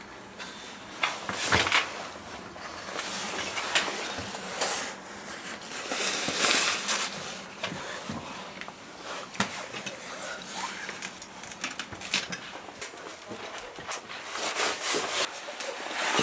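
Handling and movement noise: a jacket rustling and scraping against wooden boards as a person squeezes through a narrow doorway, with irregular footsteps, knocks and crunches on a debris-covered floor and stairs.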